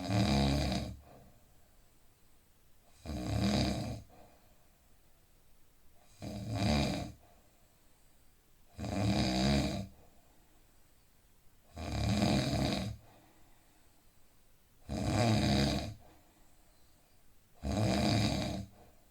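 A man in deep sleep snoring steadily: seven loud snores, each about a second long, coming about every three seconds.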